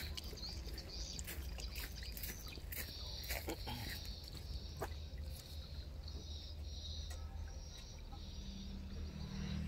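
High-pitched animal chirping, repeated evenly about twice a second, over a steady low rumble. A few small sharp clicks come in the first few seconds.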